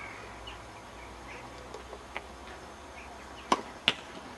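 Tennis ball being played: sharp pops of the ball off racket and court, a faint one about two seconds in and a loud pair close together near the end. Birds chirp faintly in the background.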